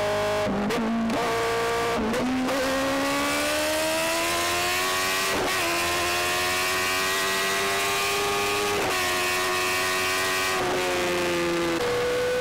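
Kawasaki ZX-10R's inline-four engine accelerating hard on the freeway. In the first couple of seconds the pitch drops and climbs again several times with quick upshifts, then the revs rise steadily for several seconds. Near the end the revs fall and jump back up with downshifts as the bike slows, all over a rush of wind.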